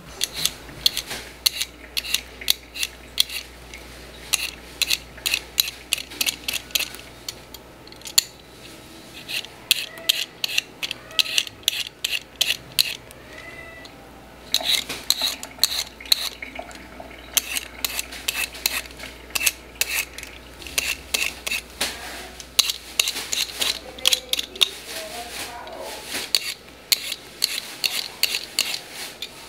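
Arracacha (batata baroa) being peeled with a metal blade: quick scraping strokes, several a second, in runs broken by short pauses.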